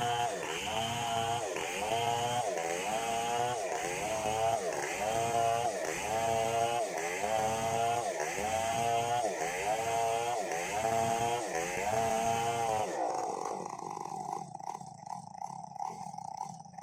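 Chainsaw engine running under load while ripping a log, its pitch dipping and recovering about once a second. About 13 seconds in, the cutting sound drops away to something quieter.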